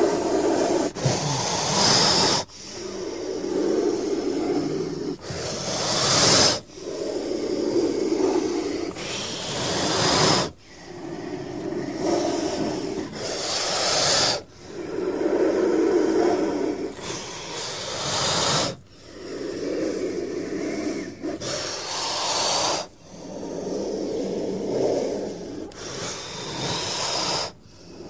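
King cobra hissing over and over, about a dozen forceful hisses roughly two seconds apart. Some are lower and rough, others sharp and bright, and many cut off abruptly.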